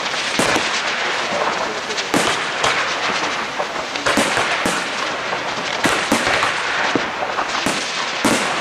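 Aerial fireworks display: many shells bursting close together, a dense continuous crackle with a sharp bang every fraction of a second to a second.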